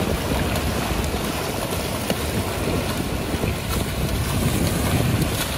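Wind noise on the microphone over surf, with water splashing as a large stingray thrashes in shallow water.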